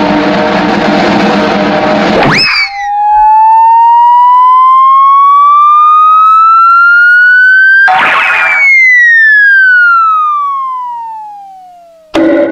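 Loud electronic siren-like sound effect: one pitched tone rising steadily for about five seconds, then, after a short burst of noise, falling steadily and fading away. It is preceded by a dense, noisy effect that ends in a quick upward sweep, and another short effect cuts in at the very end.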